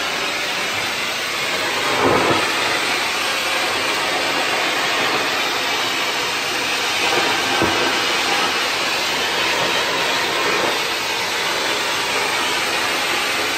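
Cold-fire pyrotechnic fountain cartridge burning in a handheld sparkler gun: a steady rushing spray of sparks, briefly louder about two seconds in and again near the middle.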